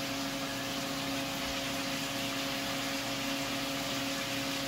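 Range hood fan running over the stove: a steady whir with a constant low hum.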